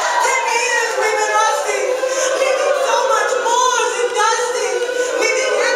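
Stage musical cast singing together as an ensemble, many voices overlapping over a steady held note.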